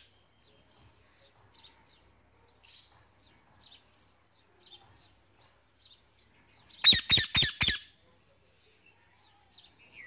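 Indian ringneck parrot calling: a quick run of about five loud calls about seven seconds in. Faint, scattered bird chirps can be heard between them.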